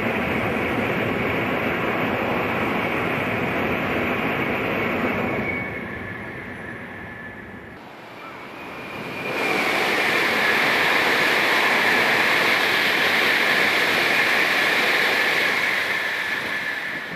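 N700 series Shinkansen bullet trains passing at high speed: a steady rushing of air and rail noise with a strong high hiss. The first pass-by fades away, then a second swells up from about halfway and stays loud until it tails off near the end.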